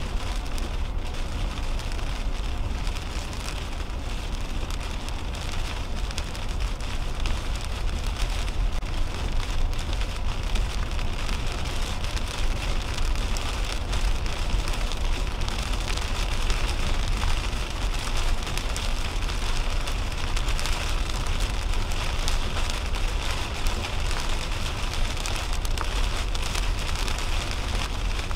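Heavy rain falling on a moving car's windshield and roof, heard from inside the cabin, over the steady low rumble and hiss of tyres on a wet highway.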